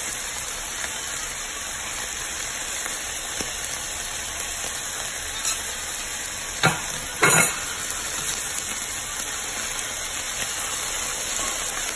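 Beef liver frying with sliced onions and green chiles in a pan: a steady sizzle. A little past the middle come two short knocks of a utensil against the pan.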